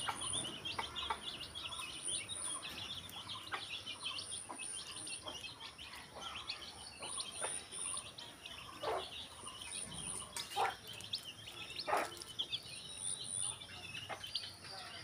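Young chicks peeping continuously in rapid, high chirps, with a few lower, louder short calls now and then.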